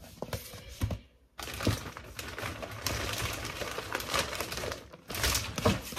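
Gift bags rustling and crinkling as they are handled, a dense run of small clicks and rustles, broken by a brief silence about a second in and louder near the end.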